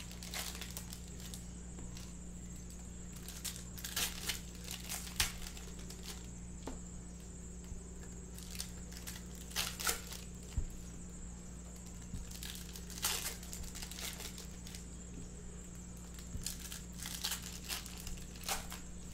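Foil wrappers of Topps Stadium Club baseball card packs being torn open and crinkled by hand, one pack after another, in short irregular rips.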